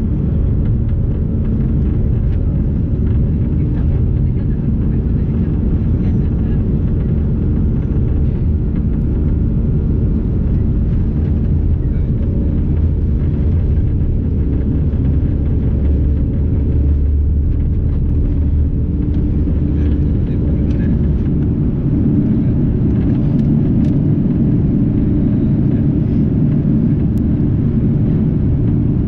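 Airbus A340-300's four CFM56-5C turbofan engines at takeoff thrust, heard inside the cabin over the wing, with a steady low rumble of the wheels on the runway during the takeoff roll. About two-thirds of the way through, the deepest rumble eases as the airliner lifts off and climbs.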